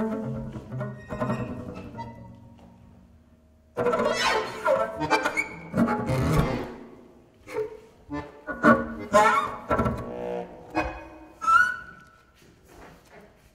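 Double bass played with a bow in sharp, jagged strokes. A quieter, fading passage gives way to a sudden loud entry about four seconds in, followed by a flurry of short, accented strokes.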